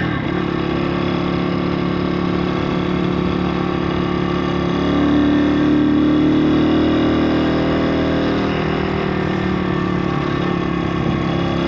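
Pit bike's single-cylinder 160cc four-stroke engine running at fairly steady low revs off the throttle, swelling louder for a couple of seconds midway. The owner says the engine won't hold a tickover and thinks the carb needs adjusting.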